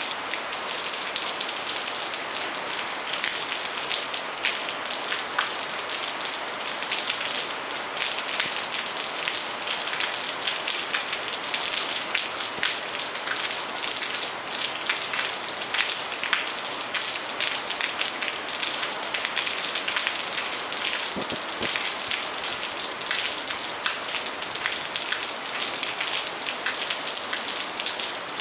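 Steady rain falling on a garden patio, a continuous hiss with many separate drops ticking close by.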